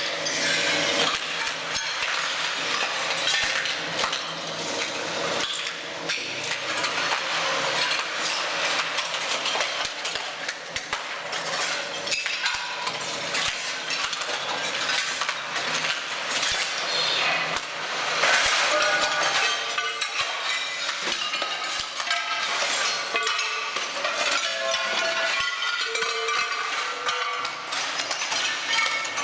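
Ceramic floor tiles cracking, and their shards clinking and scraping, as the blade of a tracked ride-on floor stripper shears them off the floor: a continuous stream of brittle clinks and snaps.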